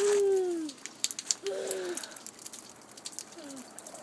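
Meltwater dripping off a roof in a quick, steady patter of drops, with a few short falling vocal sounds over it, the first and loudest right at the start.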